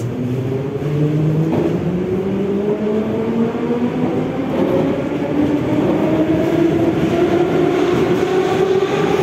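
Metro train accelerating, heard from inside the car: a whine of several tones rising steadily in pitch over the rumble of the wheels.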